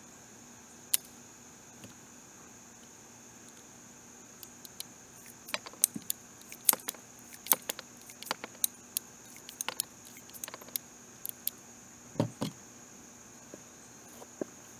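Irregular light metallic clicks and clinks from handling a .22 Heritage Rough Rider single-action revolver after firing: a single click about a second in, then a busy run of clicking through the middle. A steady high insect drone, crickets, goes on underneath.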